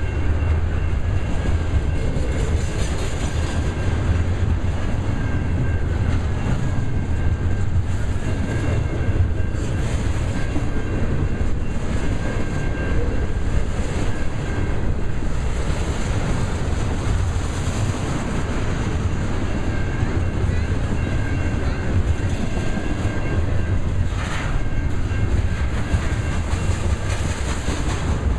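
Loaded double-stack intermodal well cars rolling past: a steady heavy rumble of steel wheels on rail, with a faint steady high ringing tone over it and one short clank near the end.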